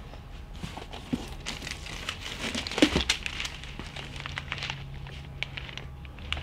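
Plastic wrapping crinkling and rustling as bundles of carbon arrow shafts are handled and lifted out of a cardboard box: an irregular run of crackles, loudest about three seconds in.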